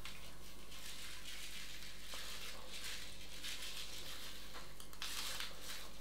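Faint rattle and patter of sugar sprinkles being scattered over a trifle's cream topping, over a low steady hum.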